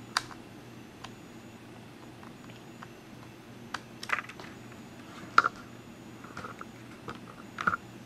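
Small screwdriver and tiny screws clicking and tapping against the laptop's hard-drive bay as the drive is screwed back into the chassis. There are about half a dozen sharp, irregular clicks, the loudest about five and a half seconds in.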